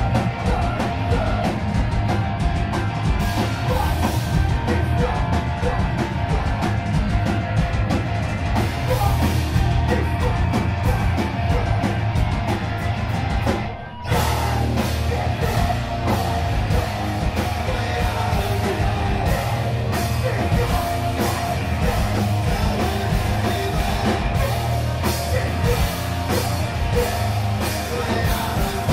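Live hardcore punk band playing loud: distorted guitars, bass and a pounding drum kit, with a singer yelling into the microphone. The band stops for a split second about halfway through, then crashes back in.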